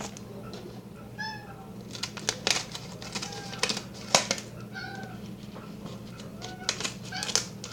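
A house cat meowing several short times, among sharp clicks, over a steady low hum.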